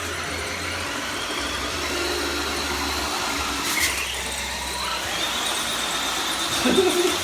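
Brushed electric motors and gear drivetrains of two Axial SCX10 RC crawlers whining steadily under heavy load as they pull against each other, with a sharp click about four seconds in. The Deadbolt's 35-turn motor is giving out and overheating under the strain.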